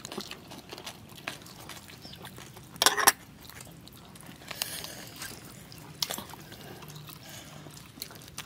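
Close-miked eating sounds: scattered wet clicks and smacks of chewing and of fingers pulling apart a whole boiled chicken, with a louder wet burst about three seconds in.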